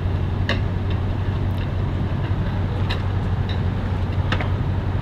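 A vehicle engine idling with a steady low hum, with a few light clicks and knocks over it.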